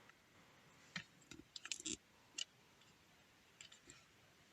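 Near silence broken by a few faint, short clicks and ticks, scattered through the middle of the stretch.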